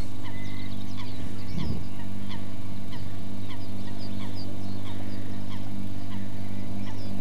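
Steady low electrical hum on the recording, with faint short downward-sliding bird chirps scattered throughout and a brief low bump about a second and a half in.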